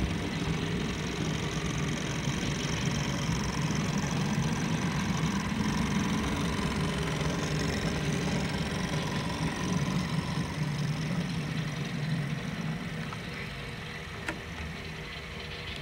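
Model diesel locomotives running through the layout, with a steady low engine-like rumble that eases off a little after about twelve seconds. A single sharp click comes near the end.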